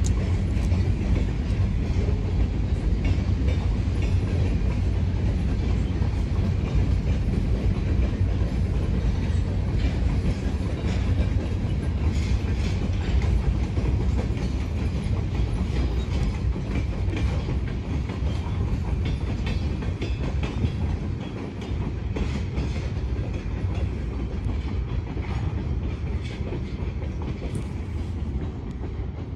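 Freight train cars rolling by with a steady rumble and wheels clacking over rail joints, the sound slowly fading as the train pulls away.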